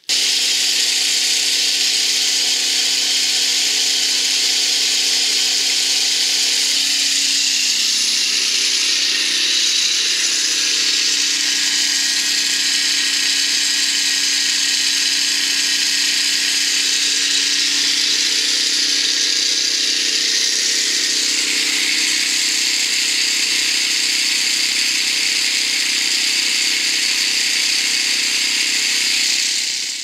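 Troy-bilt 5550-watt portable generator running steadily with a secondary muffler added and pointed straight up, loud (about 87 dB on a meter at 10 feet). Its tone changes slightly about a quarter and about two thirds of the way through.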